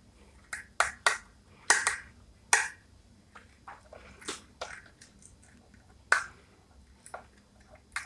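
A small screwdriver working a screw in a ceiling fan's plastic terminal block, clamping the neutral wire: a series of irregular sharp clicks and short scrapes, thickest in the first three seconds, then sparser.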